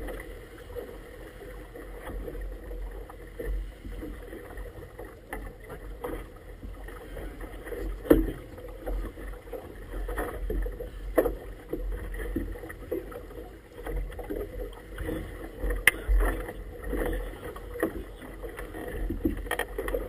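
Water slapping and splashing against the hull of a small inflatable boat in choppy water, with wind gusting on the microphone. Sharp knocks come now and then; the loudest are about eight and sixteen seconds in.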